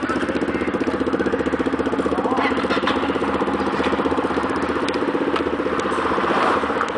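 Yamaha XT660's single-cylinder engine idling steadily at a standstill.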